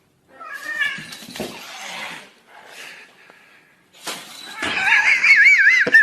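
Animal cries: a short pitched call about half a second in, then a loud, high, wavering cry whose pitch swings up and down several times a second near the end.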